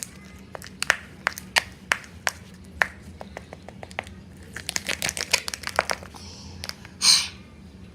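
Sticky glue slime being stirred and worked in a plastic container: irregular sharp clicks and taps, quickest about halfway through, with one short loud burst of noise about seven seconds in.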